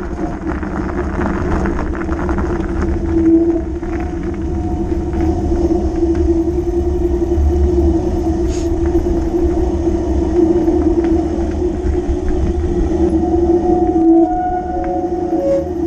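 Fat bike tyres rolling over gravel and paved lanes with a steady hum, over a constant low rumble.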